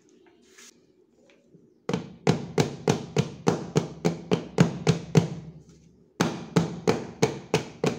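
A metal tube cake pan full of batter knocked repeatedly on the countertop to settle the batter, about three sharp knocks a second. The knocking starts about two seconds in, breaks off briefly after about six seconds, then starts again.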